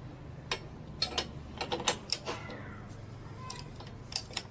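Irregular ratchet clicks and metal clinks from a torque wrench and socket being worked to unscrew the variator nut on a scooter's drive pulley, held still by a locking tool. The clicks bunch together between one and two seconds in and again near the end.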